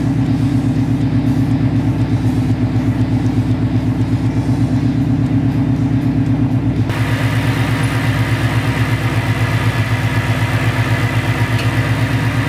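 A 2016 Mustang GT's Roush-supercharged Gen 2 Coyote 5.0 L V8 idling steadily with an even pulsing beat, just started on fresh spark plugs to check that it idles and runs properly. About seven seconds in, the sound brightens and a steady high whine joins the idle.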